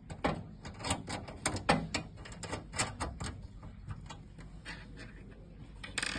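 Irregular light clicks and taps of small metal parts: the anti-tilt bar, its mounting plate and screws knocking together as they are handled and fitted to the tray chain.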